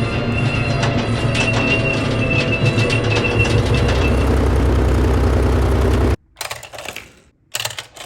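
Steady engine-like rumble with a thin high whine over it, cutting off abruptly about six seconds in, followed by a few faint clicks.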